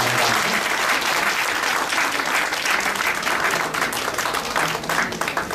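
Audience applauding, the clapping thinning into separate claps near the end.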